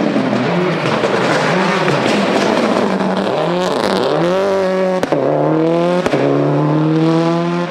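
Subaru WRX STI rally car at full throttle. For the first few seconds the engine is buried under a dense rush of tyre and gravel noise. Then its note climbs clearly and drops back at quick upshifts about a second apart.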